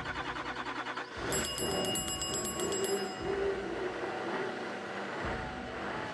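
Diesel pickup engine on a hard cold start: the starter cranks in a fast even pulse, and about a second in the engine catches and keeps running. A high, rapidly pulsing chime sounds for about a second and a half as it catches. The fuel system is freezing up, which the owner puts down to the fuel filter.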